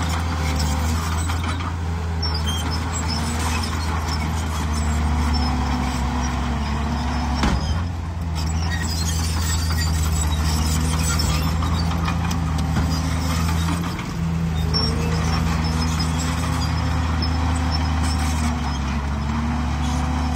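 Heavy diesel engine of earthmoving machinery running steadily, its pitch dipping and rising again a couple of times as the revs change. A single knock sounds about seven and a half seconds in.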